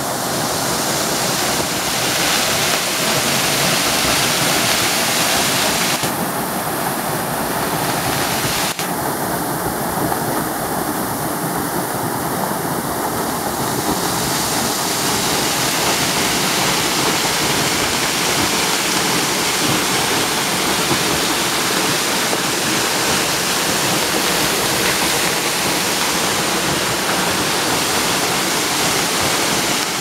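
Waterfall: a steady rush of falling water, its hiss turning brighter and duller a few times. A short click about nine seconds in.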